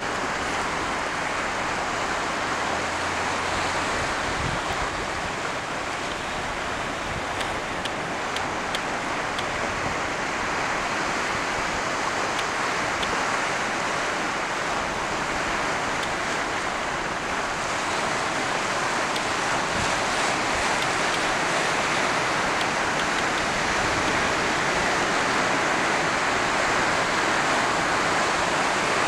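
Sea surf breaking and washing over a rocky shore: a steady rushing noise, growing a little louder in the second half.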